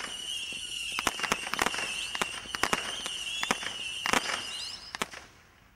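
Stealth 'Night Bugs' firework cake firing screeching whistle (penlid) shots: several high whistles overlap at nearly one pitch, broken by sharp bangs. The whistling stops near the end, a last bang comes about five seconds in, and the sound dies away.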